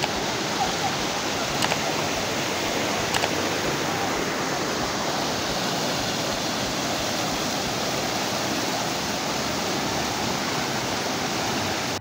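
Waterfall and fast water rushing in a steady, dense roar, with two faint clicks in the first few seconds.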